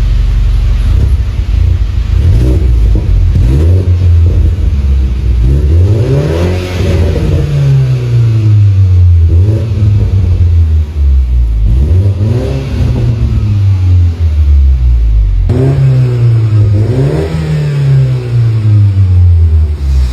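BMW 320 engine through a stainless-steel aftermarket sport exhaust, revved several times, the pitch rising and falling with each rev; the longest rev comes about seven seconds in.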